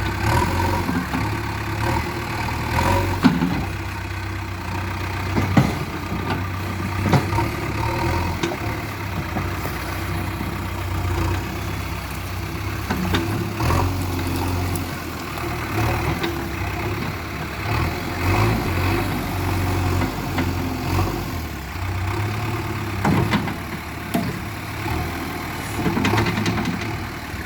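JCB 3DX backhoe loader's diesel engine running steadily, with a few short sharp knocks scattered through it.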